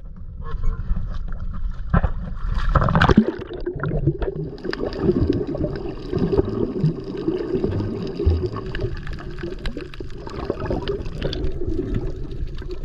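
Water gurgling and sloshing, heard close around a snorkeler in the water, with a louder surge about three seconds in.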